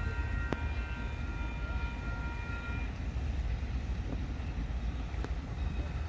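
Distant locomotive whistle, the steam whistle of Canadian Pacific 2816, sounding one long held chord of several notes that stops about three seconds in, over a steady low rumble.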